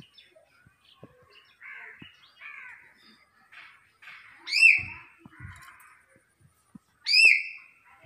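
Hill myna calling: soft chattering, gurgling notes, then two loud whistles about two and a half seconds apart, each sweeping sharply up and then held briefly.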